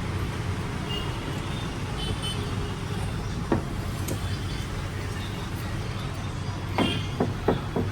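Steady low rumble like passing road traffic, with a few sharp metallic taps: one about halfway through and several close together near the end.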